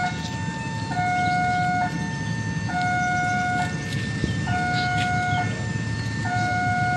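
Electronic railway level-crossing warning alarm sounding a steady two-tone, low-high pattern, each tone about a second long, over a low rumble.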